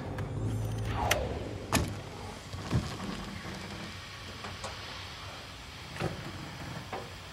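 Clicks and knocks from valve knobs and switches being worked in a lunar module cabin, about six spread over several seconds, with a short falling squeak about a second in. Underneath is a steady hiss, and a low hum during the first second or so.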